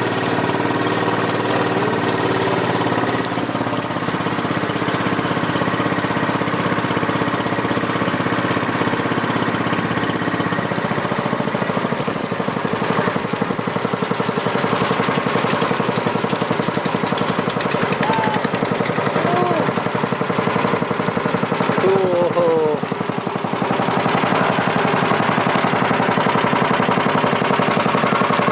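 Small passenger boat's engine running steadily with a fast, rapid rapping beat; its steady drone weakens about ten seconds in, as when the throttle is eased.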